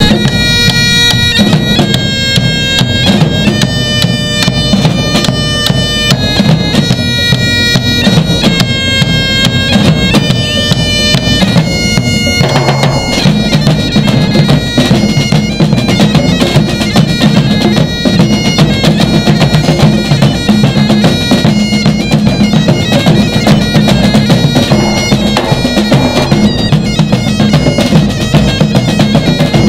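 Great Highland bagpipes playing a tune over their steady drones, with a band of drums beating along: bass drums, a snare drum and a pair of congas. The drumming gets fuller and busier about twelve seconds in.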